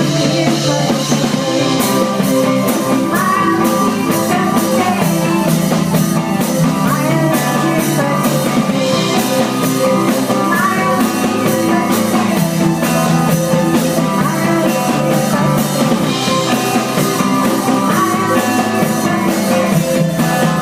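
Indie pop band playing live: electric bass and keyboard, with a drum beat coming in about two seconds in.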